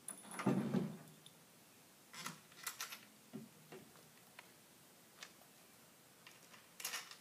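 Kayak rack parts being handled on a pickup's tailgate: a dull knock with a rustle about half a second in, then a scatter of light clicks and knocks, several close together near the end.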